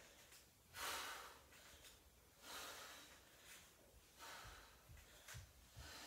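Faint breathing of a woman exercising: soft exhales about a second apart as she drives her knees up. A few soft low thumps of bare feet stepping on a wooden floor come near the end.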